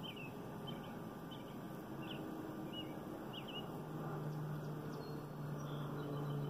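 A bird chirping over and over, short high calls a little under a second apart, over a steady outdoor hiss. About four seconds in, a low steady hum comes in beneath it.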